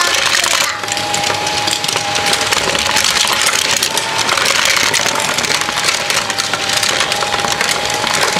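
A motorized Tomica toy-car lift runs on its plastic track, a dense clicking clatter of die-cast cars knocking against each other and the plastic as they are carried up the ramp. A steady whine runs underneath.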